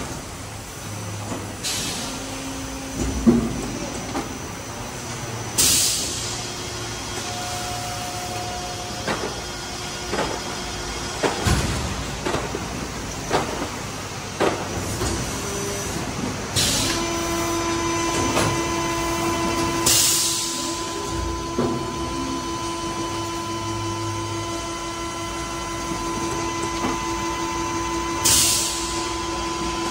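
PET preform injection moulding machine running through its cycle: a steady machine drone with scattered clunks, several short hisses of air, and a steady whine that sets in about halfway.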